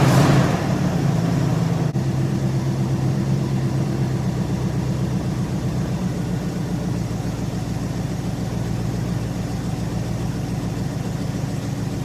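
Dodge 318 small-block V8 running on a freshly fitted carburetor, still cold. Its engine note eases down from a higher, louder speed in the first half-second, then settles into a steady idle, with one sharp click about two seconds in. The owner later finds the engine running a bit rich.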